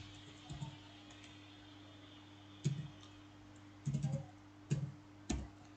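Computer keyboard typing: a handful of separate keystrokes spaced unevenly about a second apart, over a faint steady hum.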